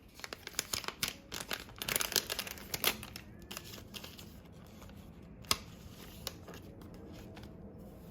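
Hands handling small objects: a quick flurry of clicks and crinkling rustles over the first few seconds, then a steady low hum with a single sharp click about five and a half seconds in.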